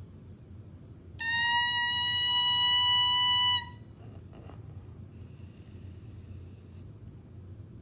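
An oboe reed blown on its own, without the instrument: a steady, high 'crow' note held for about two and a half seconds, then cut off. A little later comes a fainter, breathy, hissing attempt on a reed that gives no clear note: the air is not making the reed vibrate properly.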